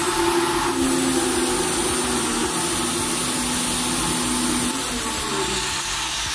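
Handheld electric circular saw running steadily as it cuts along the marked end of a laminated wooden door, trimming it to fit the door frame: a steady motor whine under the noise of the blade.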